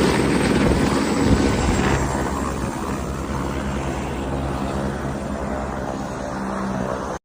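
Helicopter running, a steady loud beat of rotor and engine; about two seconds in the higher part of the sound drops away and the level eases a little, then it cuts off suddenly at the end.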